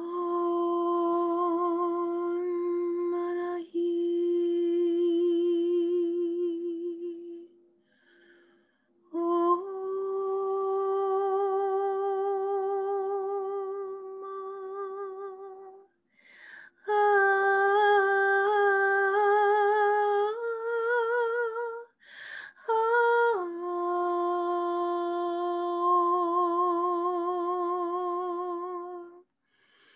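A woman humming long held notes, broken by short breaths. She starts on a steady low note, steps higher about nine seconds in and higher again partway through with a wavering vibrato, then drops back to the opening note for the last phrase.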